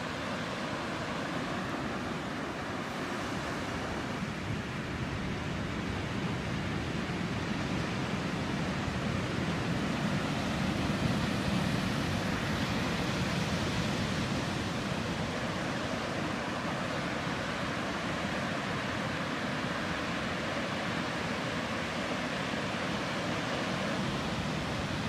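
Surf breaking on a sandy beach: a steady wash of waves, swelling a little around the middle.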